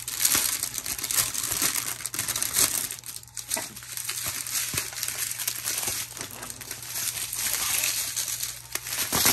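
Plastic packaging crinkling and rustling as strips of small sealed bags of diamond-painting drills are pulled out and handled.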